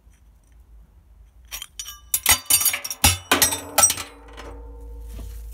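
Worn Voge 300 oil pump thrown into a steel scrap barrel of old sprockets and brake discs: a quick cluster of metallic clanks and clinks starting about a second and a half in, with the scrap ringing on for a second or so afterwards.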